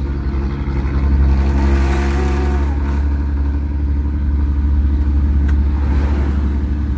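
Old truck's diesel engine running with a deep exhaust note, the revs swelling briefly about two seconds in.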